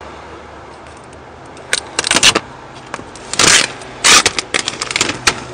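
Clear plastic protective film being pulled off a car's alloy wheel, crinkling and crackling in sharp bursts, loudest a little after the middle, then a run of short crackles, over a steady background noise.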